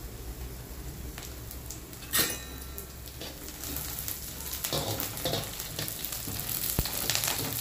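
Chopped onions and green chillies sizzling in hot oil in a metal kadai while a wooden spatula stirs them. There is a sharp ringing clang from the metal pan about two seconds in, and lighter knocks around the middle and near the end.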